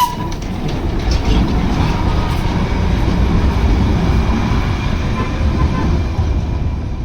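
Darjeeling Himalayan Railway toy train, hauled by a steam locomotive, running past with a steady low rumble.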